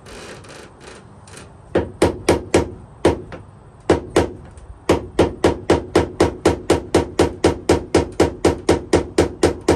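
Hammer striking the metal steering linkage of a Yamaha 85 HP outboard to knock the seized drag link free of the steering arm. A few scattered blows come about two seconds in, then a steady run of about four blows a second.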